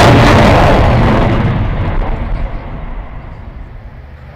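Military fast jet's engine roar, loud at first and fading away over a few seconds, its hiss dropping out about a second and a half in.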